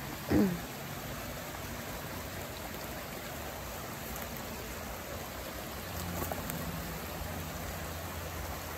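River water rushing steadily over rocks. Near the start, one brief loud sound that falls in pitch cuts through it.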